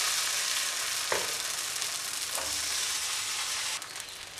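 Fermented rice appam batter sizzling steadily in a hot non-stick appam pan, with two light knocks of the pan early on. Near the end the sizzle drops off sharply as a glass lid is set over the pan.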